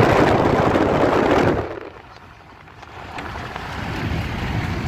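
Road noise from inside a moving car: a loud rush of wind and tyres as another car passes close alongside, fading away after about a second and a half into a quieter steady road hum that slowly builds again.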